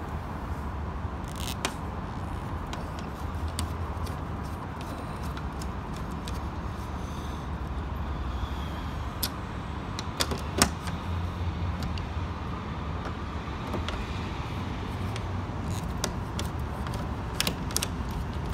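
Nut driver turning out fasteners on a car door's inner steel frame: scattered sharp metal clicks and taps over a steady low hum.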